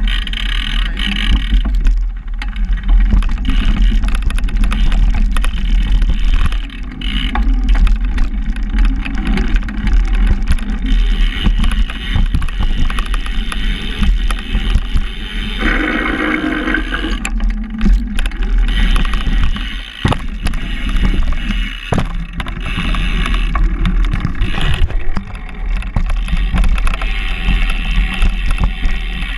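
Mountain bike being ridden fast over an indoor dirt and wood track, heard close up from a camera mounted on the bike: a steady tyre rumble and wind on the microphone, with frequent clicks and knocks as the bike rattles over bumps.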